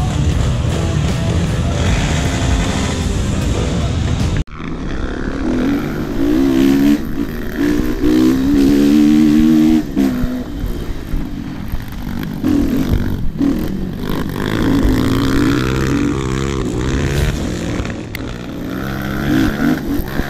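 Dirt bike engines running and revving, their pitch rising and falling, with an abrupt break about four seconds in.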